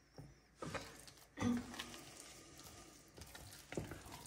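Spatula stirring a thick, creamy quark spread in a stainless steel bowl: a few quiet, soft scrapes and squelches, the fullest about a second and a half in.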